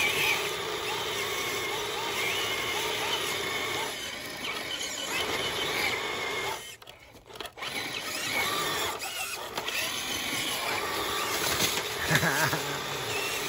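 ROC Hobby Willys RC scale crawler's electric motor and gearbox whining under load as it crawls up a rocky rut. The whine cuts out for about a second midway, then picks up again.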